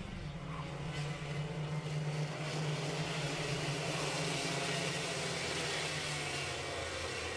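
A pack of 125cc two-stroke racing kart engines running steadily together as the grid rolls round before the start, a constant drone that grows a little louder about two seconds in.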